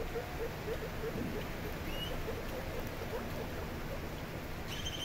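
Baby guinea pigs munching leafy greens, a run of small soft chewing sounds several a second, with a brief high squeak near the end.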